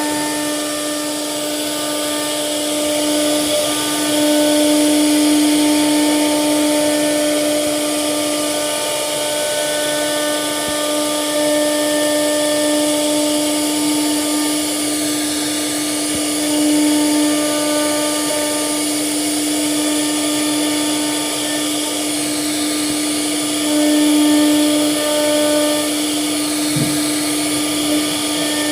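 CNC router spindle running steadily while carving a wooden door panel: one unbroken high tone over a hiss of cutting noise, swelling a little louder now and then as the bit bites.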